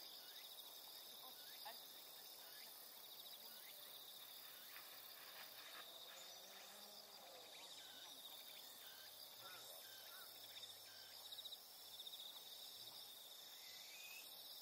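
Faint, continuous high-pitched trilling of insects in grassland, with a few faint short chirps over it.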